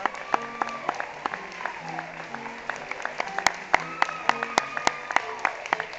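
Curtain-call music with audience applause, sharp individual claps close by standing out over it.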